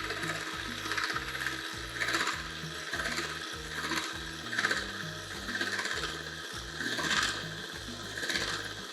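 Electric hand mixer running at its lowest speed, whisking eggs and brown sugar, with the beaters scraping against the bowl about once a second.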